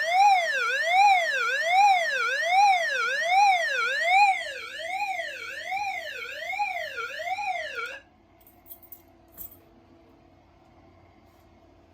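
Fire alarm voice-evacuation speaker sounding a siren tone that sweeps up and down about once every 0.8 seconds: the alarm signal for an activated suppression agent release. The tone cuts off suddenly about eight seconds in, leaving only a few faint clicks.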